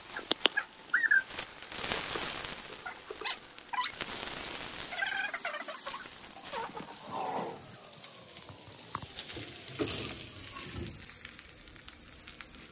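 Cutlets frying in hot oil in a non-stick pan, sizzling, while a spatula clicks and scrapes against the pan as they are lifted out. A few short squeaky tones come through, about one second in and again around five and seven seconds.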